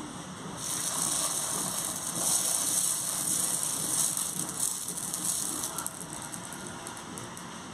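Dosa batter sizzling as it is ladled onto a hot dosa griddle: a hiss that starts about half a second in, stays strong for about five seconds, then dies down to a lighter sizzle.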